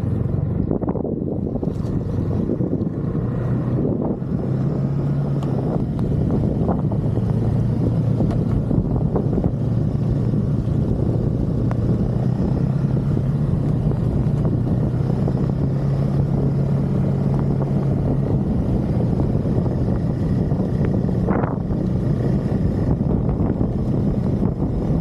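Snowmobile engine running at a steady pace, with wind buffeting the microphone.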